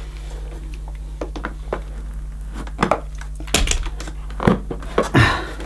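Hard plastic clicking and scraping as a stuck post-motor filter is prised out of its plastic housing in a Dyson DC11 canister vacuum. The knocks come a few at a time and grow louder in the second half.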